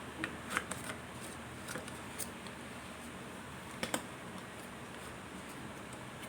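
Mothballs being handled, giving a few light, sharp clicks: a cluster near the start, a couple more, then a double click past the middle, over a steady hiss.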